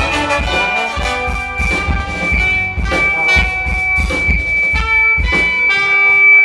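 Brass ensemble playing with drums, with a steady high-pitched feedback whine ringing over it. The band stops just before the end while the feedback tone keeps sounding.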